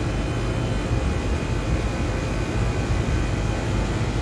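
Rooftop R22 package air conditioner running steadily in test mode with its newly replaced compressor, a low steady hum under an even rush of fan air, while refrigerant is charged into it.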